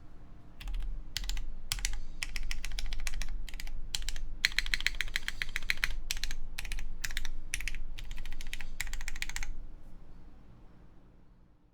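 Typing on a Keycult Zero mechanical keyboard with lubed Cherry MX Black Clear Top (Nixie) linear switches, mounted plateless on a 1.6 mm PCB, with GMK keycaps: runs of quick keystrokes, then the typing stops about nine and a half seconds in and the sound fades out.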